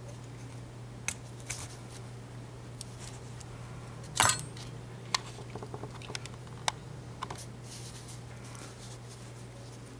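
Scattered small metallic clicks and one louder scrape of padlock parts being handled as the ASSA Ruko 2 is taken apart, over a steady low hum.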